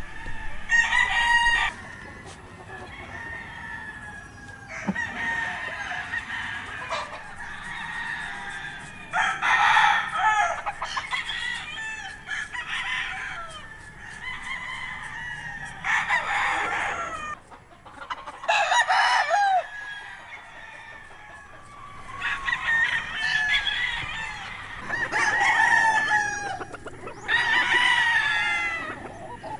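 Many gamecock roosters crowing, one after another, about nine loud crows with some overlapping, over a constant background of other birds calling.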